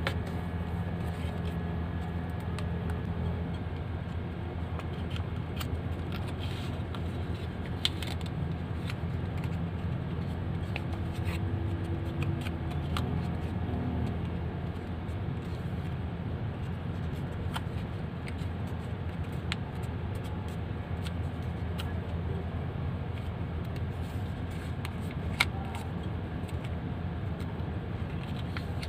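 Paper being folded and creased by hand: scattered crinkles and sharp little taps, a sharper one about eight seconds in and another near the end. Under them runs a steady low hum.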